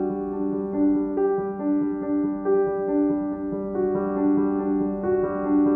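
Background piano music: a slow melody of held notes over a steady low tone.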